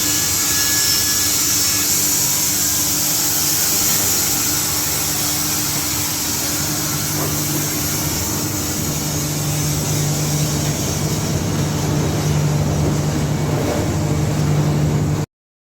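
Carpathian SMFA 100 automatic band sawmill running, with a steady motor hum and the hiss of the blade sawing boards; the high hiss thins out about eleven seconds in, and the sound cuts off abruptly near the end.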